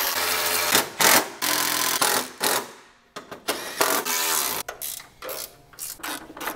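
Red cordless power tool driving the radiator and shroud bolts down tight, running in several bursts: a longer stretch over the first two and a half seconds, then shorter spurts.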